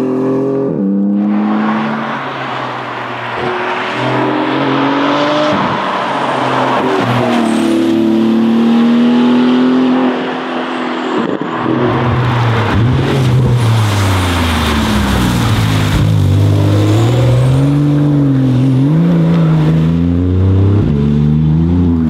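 Porsche 911 GT2 RS's twin-turbo flat-six at full race pace, heard from the roadside, its pitch climbing through the gears and dropping on lifts and shifts. About halfway through a deeper, louder engine note takes over, swinging up and down as the car works through a series of corners.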